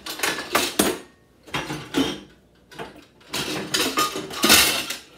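Kitchen clatter of dishes, utensils and containers being moved and knocked together, a series of knocks and clinks in bursts, loudest about four and a half seconds in, as things are rummaged through in search of a spice jar.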